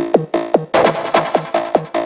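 Hard trance played loud off the DJ decks. A fast, even kick drum drops in pitch on each hit, and a bright hissing noise wash sweeps over the beat for about a second in the middle.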